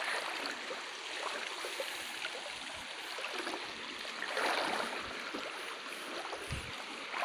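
Shallow river flowing over stones: a steady rush of water, swelling briefly about four and a half seconds in.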